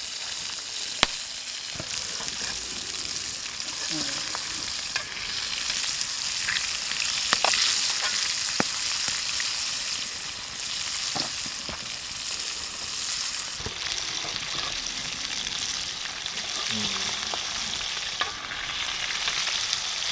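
Fish frying in hot oil in a pan over a campfire: a steady sizzle with scattered sharp pops.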